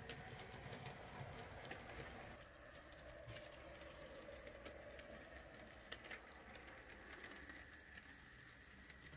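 Faint running of a model train: a small tank locomotive hauling two Hornby four-wheel coaches, with light irregular clicking of the wheels over the rail joints and a faint steady motor hum.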